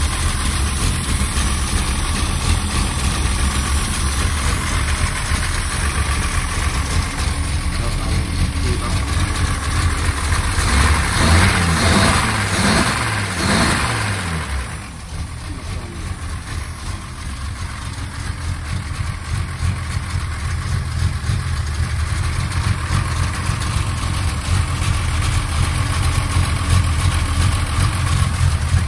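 Mercedes 220SEb fuel-injected straight-six running in a garage, its speed rising and falling a few times around the middle before dropping back and settling to a steady run. The engine is overfuelling heavily, running rich.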